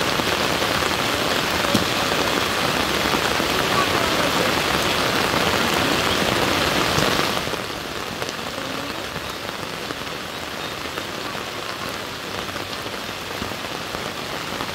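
Steady rain pouring down, a dense hiss of rain on surfaces that becomes quieter and duller about halfway through.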